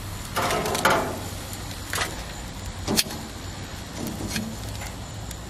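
Metal tongs clinking against a stainless steel pan and grill grates as cooked crab legs are lifted off the grill: a short clatter about half a second in, then a few single clinks, over a steady low hum.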